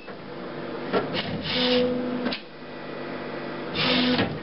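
HP DesignJet Z3200 printer's carriage drive running in two short stretches, about a second in and again near the end, each with a steady hum under a hiss. It is moving the printhead carriage out to give access for a printhead replacement.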